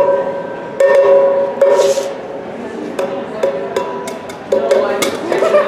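Coins dropped one at a time into a metal bucket, each landing with a sharp clink followed by a short ringing tone; it happens several times.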